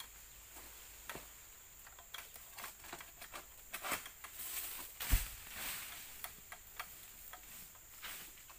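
Scattered light clicks and rustles, with one dull thump about five seconds in.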